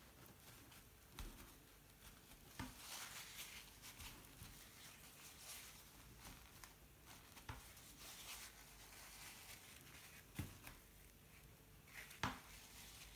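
Faint rustling of a paper towel being dabbed and wiped over watercolour paper, with a few soft taps.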